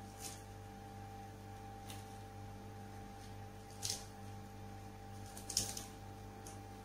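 Lettuce leaves handled and torn by hand, giving four short, crisp rustles; the loudest come about four and five and a half seconds in. Under them runs a steady low electrical hum.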